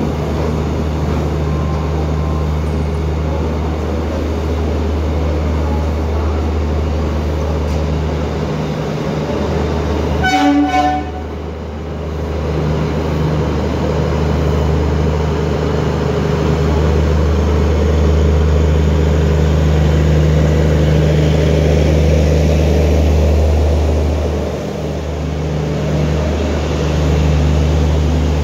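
ICF passenger coach running at speed on the track, a steady low rumble of wheels on rails. About ten seconds in, a short train horn blast rises over it.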